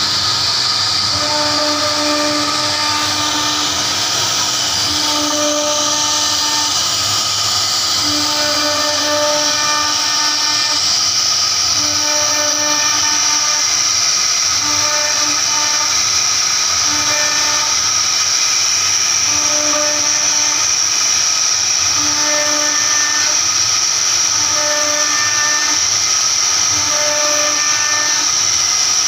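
CNC router spindle whining steadily as its small bit carves a relief pattern into a wooden panel. A lower hum comes and goes every second or two as the carving head moves.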